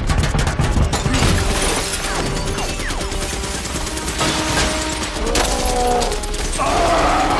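Action-film soundtrack: rapid heavy gunfire from an aircraft cannon, rounds hitting metal and glass shattering, over orchestral music.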